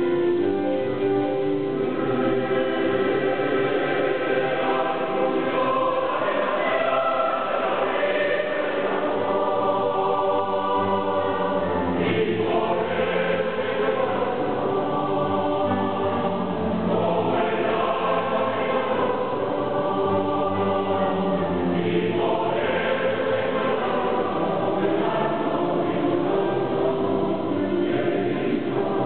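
Mixed choir of men's and women's voices singing, with long held notes.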